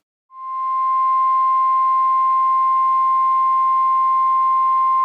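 NOAA Weather Radio warning alarm tone: one loud, steady, unbroken beep at a single pitch, starting just after a moment of silence. It signals that a warning broadcast is about to follow.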